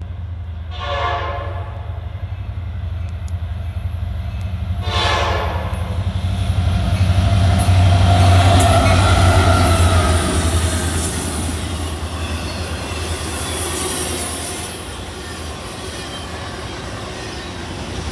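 Freight train's diesel locomotive sounding two short horn blasts about four seconds apart over the steady drone of its engine, followed by the rumble and clatter of the train rolling past.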